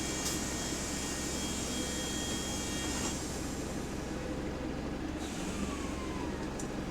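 Interior sound of bus WS104 in service: the engine running steadily, with a high hiss that cuts off suddenly about five seconds in and a short falling whine near the end.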